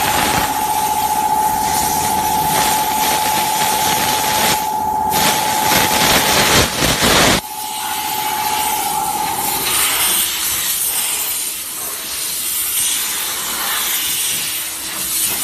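Steam car-wash machine's hand wand hissing loudly as it jets steam onto a car's bodywork, with a steady machine whine and low rumble beneath. The rumble drops away about seven seconds in and the whine a couple of seconds later, leaving the hiss.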